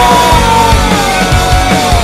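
Grunge-style alternative rock band playing loud, with distorted guitars and drums pounding underneath. On top, a long held melodic note slides slowly lower.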